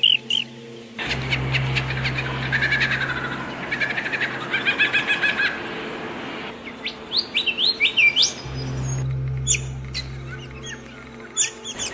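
Several songbirds chirping and calling together: rapid trills and quick rising and falling whistled notes, over a steady low hum.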